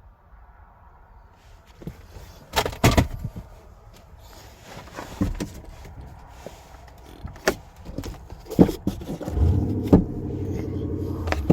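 Sharp clicks and knocks of someone handling the interior of a parked car, a pair close together a few seconds in and more spaced out after; near the end a steady low hum sets in and keeps going.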